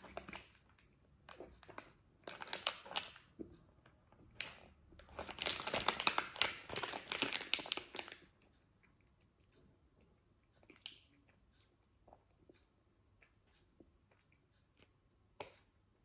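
Plastic wrapper of a Snickers bar crinkling as it is handled and turned over, in a short spell about two and a half seconds in and a longer one from about five to eight seconds, then only faint scattered ticks.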